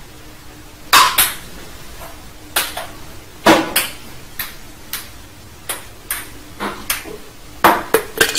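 Ping-pong ball tapping against a paddle and a hard tabletop: a string of sharp, light clicks at irregular intervals, several in quick pairs.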